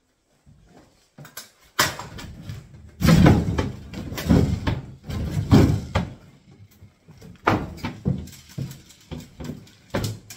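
Kitchen cabinet units being knocked and wrenched apart: a run of irregular knocks and bangs, loudest about three to six seconds in.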